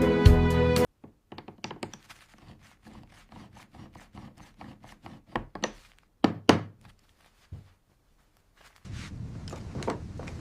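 Background music that cuts off abruptly, followed by a series of faint knocks and clicks, one loud thunk about six seconds in, and a steady low noise with further knocks near the end.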